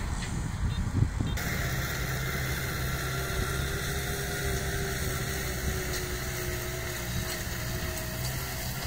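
Kubota tractor's diesel engine running steadily under load as it pulls a tillage implement through dry ground.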